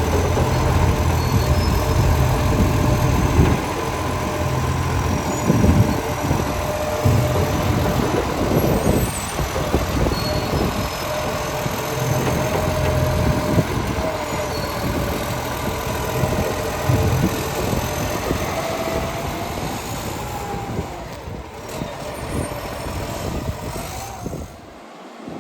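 Garbage truck engine running close by, with a steady higher whine over it; the sound drops away near the end.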